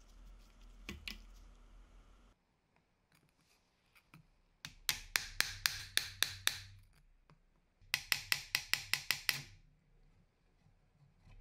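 Hammer tapping on a short length of plastic pipe held over a drill press's quill return spring housing, driving it off its shaft: a run of about eight sharp taps about five seconds in, then a quicker run of about ten near eight seconds. A few faint clicks come before the taps.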